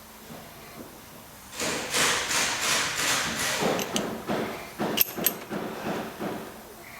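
Hand-tool work on a brake caliper being reassembled: a run of rhythmic knocks, about three a second, starting a second and a half in and fading out near the end, with two sharp metallic clicks midway through.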